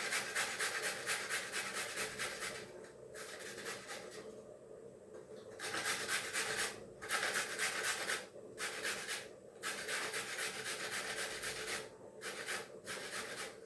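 Carrots being grated on a metal grater: fast, even rasping strokes, several a second, with a few brief pauses.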